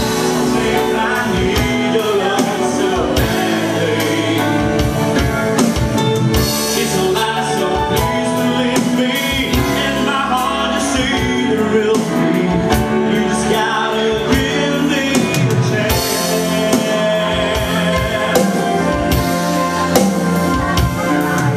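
Live band playing a song, with a steady drum-kit beat under sustained chords and a melody line, during a stretch between sung lines.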